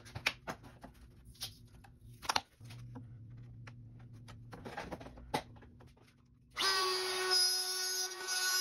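Scattered knocks and clicks as clamps and a clear acrylic routing template are handled on a wooden board, then about two-thirds of the way in a DeWalt compact router starts and runs steadily with a high whine.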